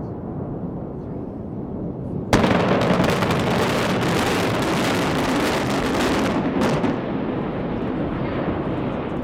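Explosive charges and the collapse of a reinforced concrete tower in a controlled implosion. Low rumbling at first, then about two seconds in a sudden sharp blast starts a loud, crackling rumble that holds for several seconds and then eases off.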